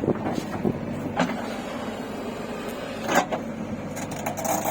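Engine of a heavy vehicle running steadily, with a few short knocks or clanks over it.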